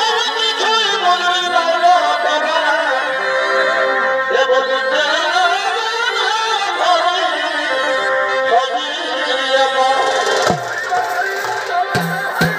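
Live Chhau dance music: a loud, wavering, ornamented melody line played continuously, with a few short knocks near the end.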